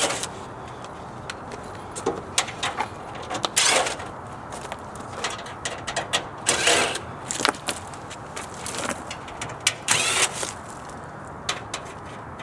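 Cordless drill with a Phillips bit whirring in several short bursts a few seconds apart as it backs screws out of a mini-split outdoor unit's sheet-metal top panel. Clicks and light metal taps fall between the bursts.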